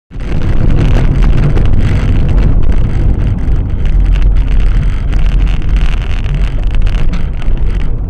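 Car driving along a road, heard through a dashcam inside the cabin: loud, steady road and wind rumble.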